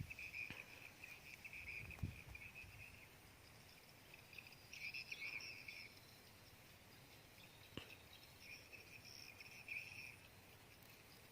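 Faint insects chirring in a high, unbroken trill that swells about five seconds in and again near the end, with a few soft clicks.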